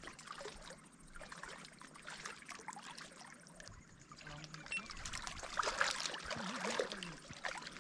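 Faint water trickling and lapping at the edge of a rocky lake shore, with light scattered rustles.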